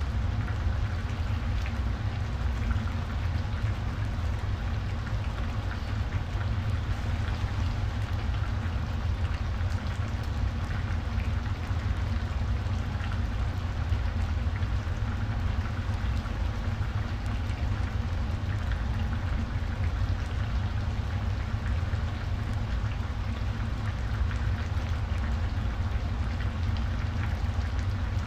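Coconut-milk broth with vegetables and tilapia simmering in an open frying pan: a steady fine crackling bubble. Under it runs a steady low hum.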